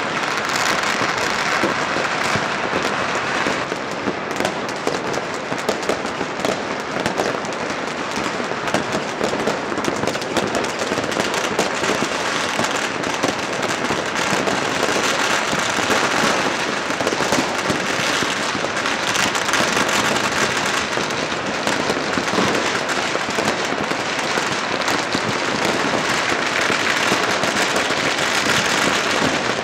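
Firecrackers and aerial fireworks going off all over a city at once: a dense, continuous crackle of countless small bangs with no pause.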